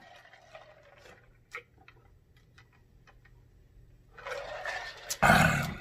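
Drinking from a large glass jar: faint mouth clicks, then about a second of gulping and slurping, ending in a short loud breathy exhale.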